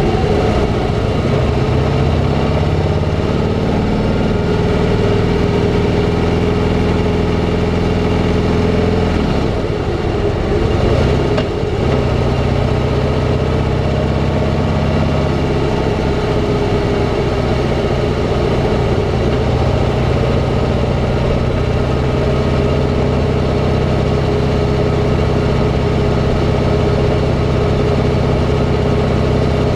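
Harley-Davidson V-twin engine running at a steady cruise, recorded from the moving motorcycle. The engine note drops away about nine seconds in and picks up again about twelve seconds in, then holds steady.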